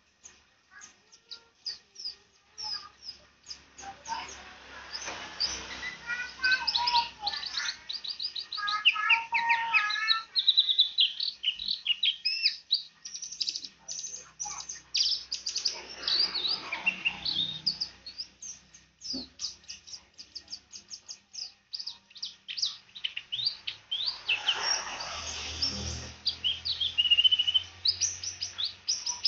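Pleci (white-eye) singing: long, rapid runs of high, twittering chirps and trills, broken by brief pauses.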